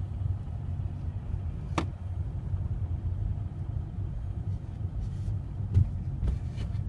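Steady low rumble of a car's engine and tyres on a snow- and ice-covered road, heard from inside the cabin. A sharp click comes about two seconds in, and a few more near the end.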